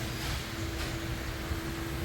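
Steady background hum and hiss: one low, even tone held over a low rumble, with no distinct events.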